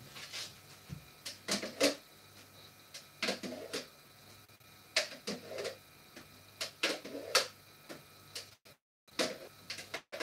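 Kitchen clatter as a spoon scoops froth off a jug of jelly at the sink: irregular clusters of sharp clicks and knocks of a spoon against the jug and small plastic pots. The sound cuts out completely for about half a second near the end.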